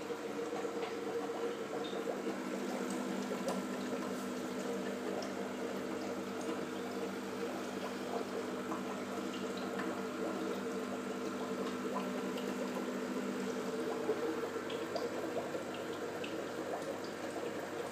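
Aquarium water running and bubbling, with a steady low hum and scattered small pops.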